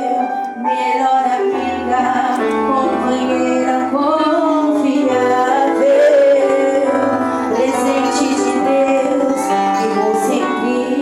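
Music with a woman singing a slow melody with held notes over instrumental accompaniment and a bass line.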